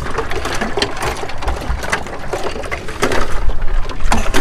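Juice-stall work noise: a clatter of knocks and crunching over a steady low rumble.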